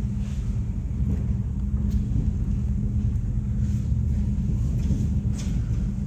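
Steady low rumble with a constant hum inside a moving aerial tram cabin as it rides down its cables, with a few faint ticks.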